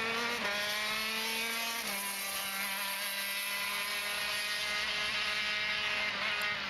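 Racing go-kart engine running at high revs as the kart drives the coned course. Its pitch shifts about half a second in and again about two seconds in, then holds steady.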